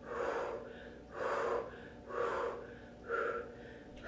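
A woman breathing hard in time with pulsing sumo squats, with four sharp, audible exhales about a second apart.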